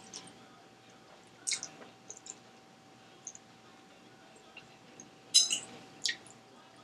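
Eating spaghetti: a few short wet mouth clicks and smacks, and a metal fork clinking against a plate a little past five seconds in, over a faint steady hum.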